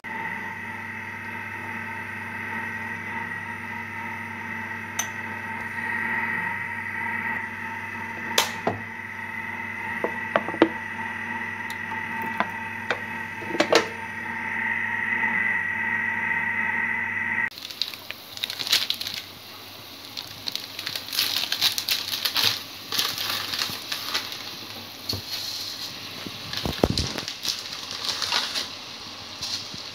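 For the first half, a steady hum with a high whine over it from the stovetop setup as a steel pot of water heats. After a cut about 17 seconds in comes the crackling and bubbling of water coming to a boil, with a few knocks near the end as dry spaghetti goes into the pot.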